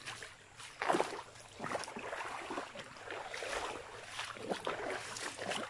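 Footsteps splashing and sloshing through a shallow stream, several irregular splashes, the loudest about a second in.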